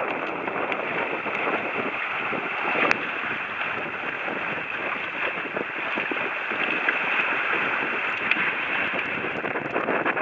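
Steady rush of wind and water as a Hobie catamaran sails, with wind buffeting the microphone. A single sharp tick about three seconds in.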